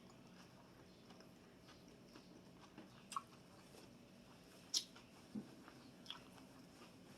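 Quiet close-up chewing of a taco, with a few short wet smacks, the sharpest about two-thirds of the way through.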